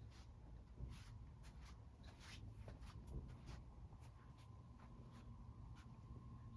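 Near silence: quiet room tone with a low hum, broken by faint, scattered light ticks and rustles.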